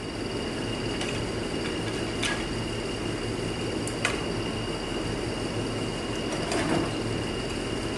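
A steady shop hum with a faint constant high whine, broken by a few light metallic clicks of transmission parts being handled: about two seconds in, about four seconds in, and a softer clatter near seven seconds.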